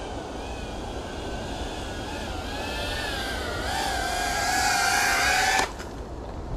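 FPV quadcopter's motors and propellers whining, the pitch wavering with the throttle and rising as it gets louder over a few seconds, then cutting off suddenly about five and a half seconds in.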